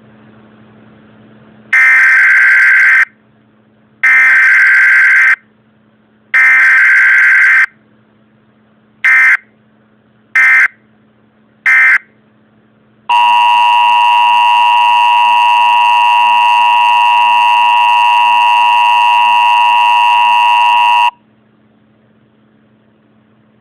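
Emergency Alert System broadcast tones: three bursts of about a second each of screeching digital data header, then three short bursts, then the steady two-tone attention signal held for about eight seconds.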